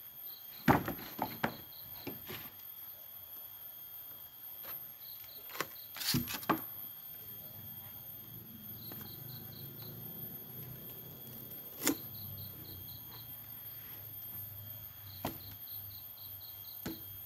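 Freshly sawn waru (sea hibiscus) planks knocking and clacking as they are handled and shifted on the pile, the loudest knocks about six seconds in. Insects chirp throughout in short repeated trains of high pulses, and a faint low hum comes in about halfway through.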